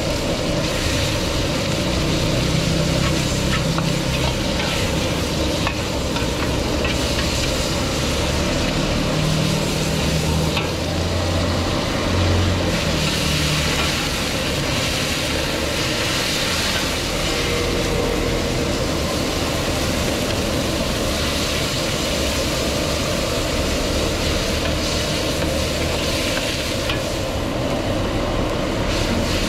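Stir-frying in a carbon-steel wok over a high-output gas burner: food sizzles in the hot pan while the metal ladle scrapes and taps the wok, over the burner's steady low rumble. The sizzle grows louder for a few seconds around the middle, when the wok flares up.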